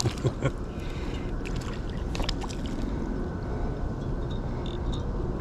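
Steady low rumble of wind on the microphone over flowing creek water, with a few short, sharp sounds in the first half-second and a couple of faint ones about two seconds in.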